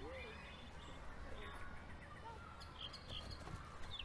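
Outdoor ambience: a low steady rumble with a few short bird chirps, and a faint voice rising and falling right at the start.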